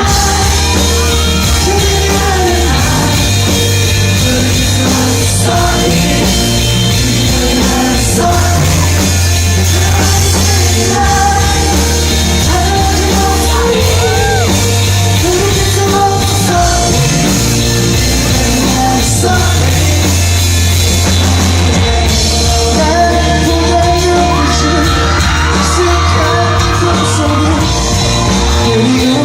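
Live pop-rock band playing with a lead singer, steady bass and drums under the vocal line, and audience members yelling over the music.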